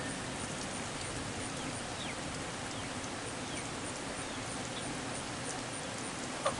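Steady patter of rain falling after a hailstorm, with a few faint, short descending bird chirps over it.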